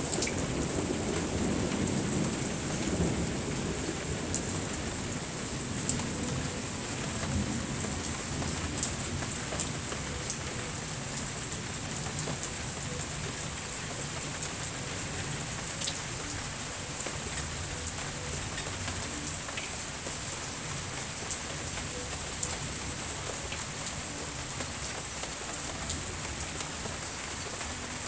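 Steady heavy rain falling, with many drops ticking close by. A low rumble of thunder in the first few seconds dies away.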